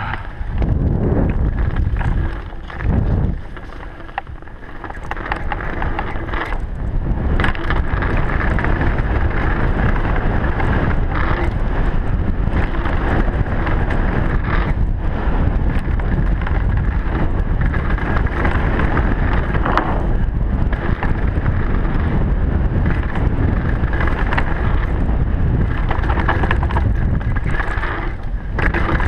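Downhill mountain bike descending a dirt trail at speed, heard on a GoPro: wind rushing over the camera's microphone and tyres rolling on dirt, with frequent knocks and rattles from the bike over bumps and rocks. It drops quieter for a couple of seconds, about two to five seconds in.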